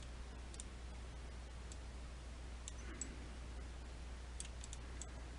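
Faint, irregular clicks of a computer mouse and keyboard as vertices are selected and moved, over a steady low hum.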